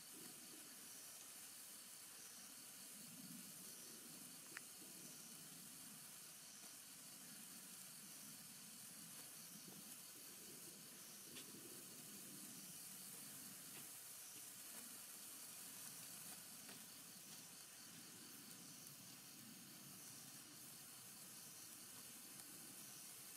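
Faint, steady sizzling hiss of a 36-inch morning glory stick sparkler burning, a firework sold as silent, with a few faint crackles of sparks.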